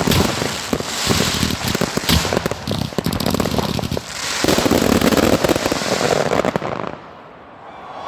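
Fireworks display: dense crackling and rapid bangs that stop fairly suddenly about seven seconds in.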